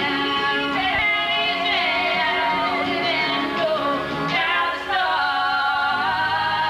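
A woman singing a rock song over instrumental backing, with wavering held notes and a long sustained note near the end.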